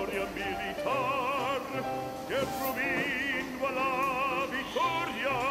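Background opera music: a singer holds wavering sustained notes over a pulsing accompaniment.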